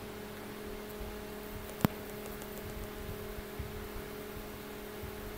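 Steady electrical hum in a quiet room, with soft low knocks and one sharp click about two seconds in.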